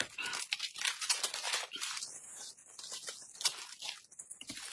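Plastic food packaging crinkling and tearing: a lid being peeled off a snack tub and a thin plastic wrapper being pulled off a pastry, as a dense run of quick crackles.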